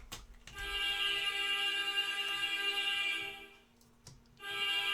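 A steady electronic tone, a buzzer-like synthesized note with many overtones. It is held for about three seconds, breaks off, and starts again shortly before the end.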